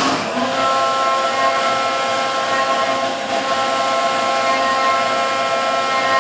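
Brother TC-S2Dn-O CNC spindle driving a three-flute carbide endmill through 6061 aluminum under flood coolant: a steady cutting whine of several high tones over the hiss of coolant spray, dipping briefly about three seconds in.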